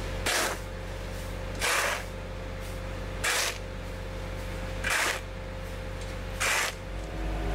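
A stiff push broom sweeping grit and dust across asphalt, five short brushing strokes about a second and a half apart, over the steady hum of a work truck's engine.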